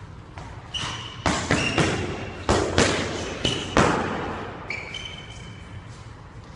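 Boxing-glove punches landing in a quick flurry, about six thuds between one and four seconds in, echoing off the hard walls of a squash court. Sneakers squeak on the wooden floor several times in between.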